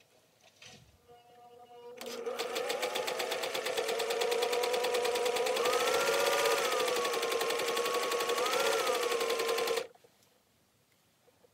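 Singer 500A sewing machine running and stitching: a steady motor whine over rapid needle strokes. It starts about two seconds in, speeds up briefly twice, and stops abruptly near the end.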